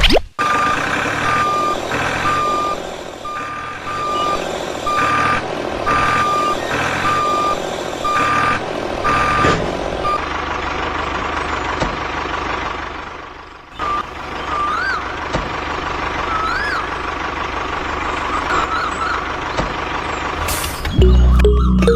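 Vehicle reversing alarm beeping about once a second over a running engine. The beeping stops about ten seconds in and the engine keeps running steadily.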